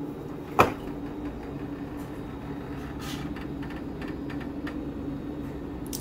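Refrigerator door pulled open by its handle, with a sharp thump about half a second in as the door seal lets go. A few fainter knocks and light ticks follow over a steady low hum.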